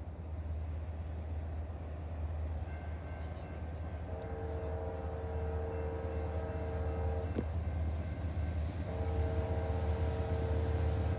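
Diesel freight locomotive horn sounding two long blasts, each a chord of several tones; the second starts about nine seconds in. Under it is a steady low rumble that grows louder as the train approaches.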